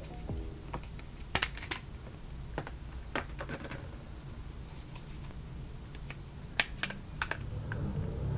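Plastic and cardboard packaging being handled on a tabletop: scattered sharp clicks and taps as a screen protector is lifted from its box, then a few louder clicks near the end as a clear plastic phone case is pressed onto the phone.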